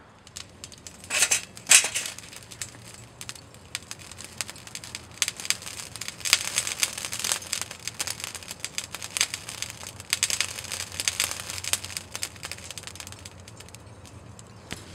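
Charcoal catching in a chimney starter lit with paper, crackling and popping irregularly as it throws sparks. The sharpest pops come about a second in, and the crackling thickens again from about five to twelve seconds in.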